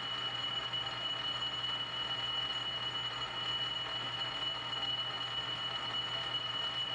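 South Bend lathe running under power feed during a threading pass, half nuts engaged, with a steady high whine from its gear train. The sliding gear is in the position where it makes a horrible racket.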